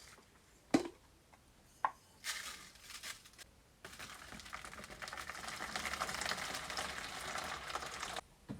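Two sharp knocks about a second apart, then a short rasp and a long, steady abrasive scraping of about four seconds that stops suddenly near the end: hand abrasive work on the hammer being restored.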